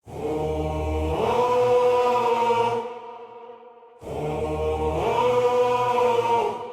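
Choral chant in a dark worship song intro: two long held phrases, each opening over a deep bass note and swelling about a second in, with a short pause between them.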